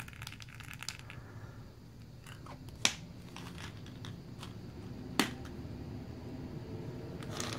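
Light clicks and rattles of hollow plastic toy eggs and candy being handled, with two sharper plastic clicks about three and five seconds in.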